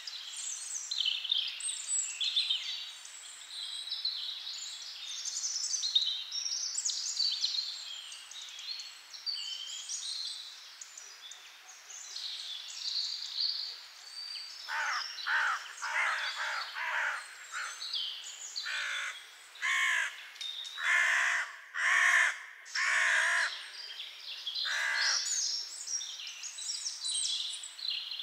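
Small birds chirping and twittering, busiest in the first half. From about halfway, a crow caws harshly about a dozen times in two runs, a second or so apart. The caws are the loudest sound.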